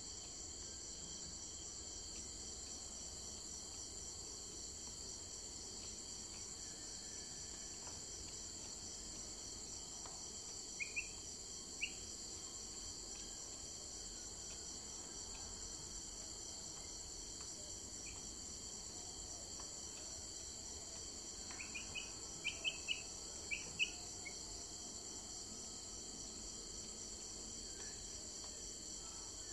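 Steady high-pitched insect chorus, crickets trilling without a break. A few short, high chirps stand out over it, two or three about a third of the way in and a quick cluster of them about three quarters through.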